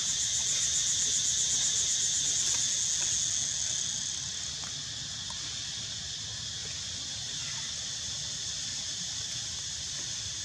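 Insects chirring in a steady, high-pitched drone with a fine rapid pulse, loudest for the first few seconds and then easing off a little.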